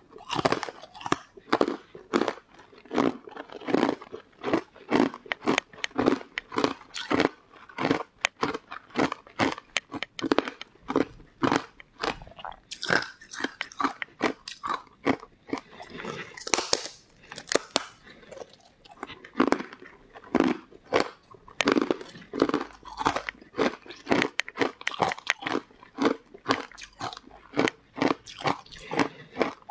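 Close-miked biting and chewing of a crisp green powder-coated food: a steady run of sharp crunches, several a second.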